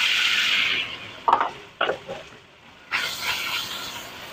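Beef pieces sizzling in a hot nonstick wok just after being tipped in. The sizzle is loudest at first and dies down. A couple of utensil knocks against the pan follow, then a fresh burst of sizzling about three seconds in as the meat is stirred.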